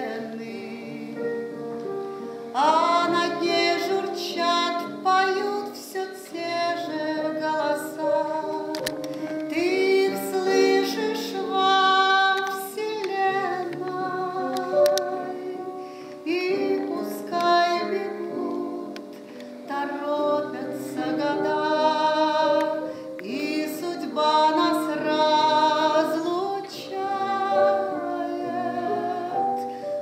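A woman singing with a strong vibrato, accompanied by a Casio Celviano digital piano; the piano plays alone for the first couple of seconds before the voice comes in.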